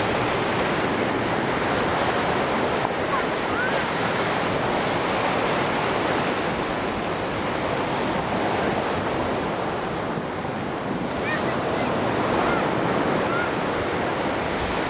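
Ocean surf breaking and washing up onto a sandy beach, a steady rush of water, with wind blowing across the microphone.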